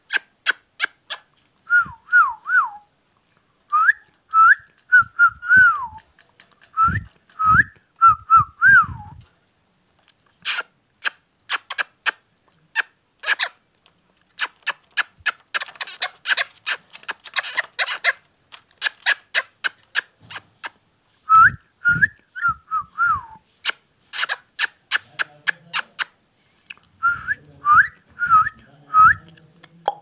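Ringneck parrot whistling in several short phrases of quick, wavering notes that glide up and down, between runs of sharp clicks.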